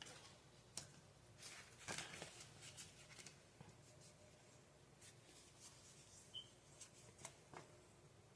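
Near silence: faint scattered clicks and soft rustles of small handling noises over low room hum, a little busier about two seconds in.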